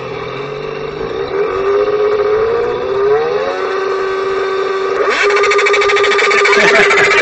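Motorcycle engine sound played from a loudspeaker: it rises and falls in pitch as if being cranked and revved, settles to a steady note, then about five seconds in breaks into a louder, buzzing run with a fast even pulse, like the engine catching.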